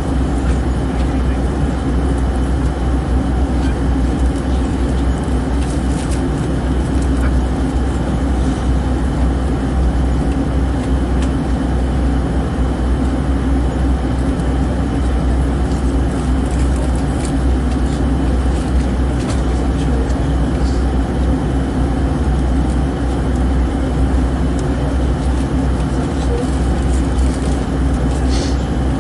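Aeroplane ambience: a steady, even drone of engine and rushing air, heaviest in the low end with a constant hum over it and a few faint clicks scattered through.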